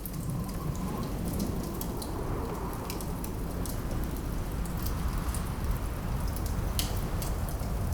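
Fireplace fire crackling, with irregular sharp pops and snaps and one louder pop late on, over a steady low rumble of wind.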